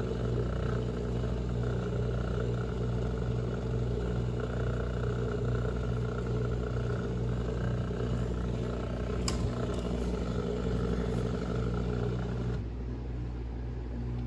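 Aikoper countertop dishwasher's pump running with a steady hum, pumping water in at the start of a wash cycle. There is a single click about nine seconds in. Near the end the rushing part of the sound drops away, leaving a lower hum.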